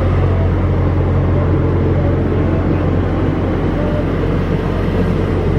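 A car engine running steadily at idle, a loud, even low rumble.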